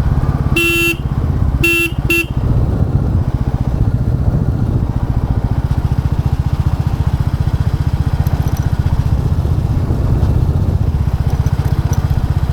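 Royal Enfield Classic 350's single-cylinder engine running steadily under way, with its low even thump. Near the start a horn honks three times, one longer honk then two short ones.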